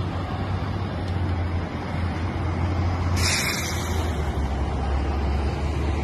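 City street traffic, a bus and cars passing, with a steady low rumble and a short burst of hiss about halfway through.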